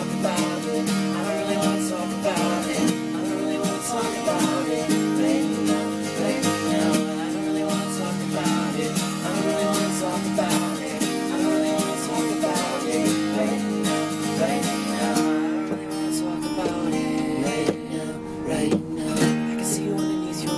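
Acoustic guitar being strummed and picked in a steady, continuous song.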